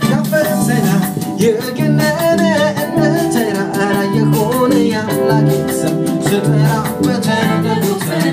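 Live worship band playing an Ethiopian gospel song (mezmur): women singing the melody over electric bass, keyboard, guitar and drums with a steady beat.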